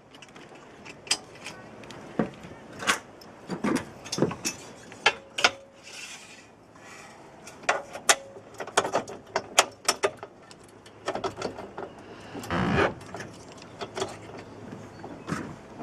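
Irregular clicks, knocks and rattles of hoist equipment being handled and fitted together by hand, with a couple of brief scraping or rustling noises.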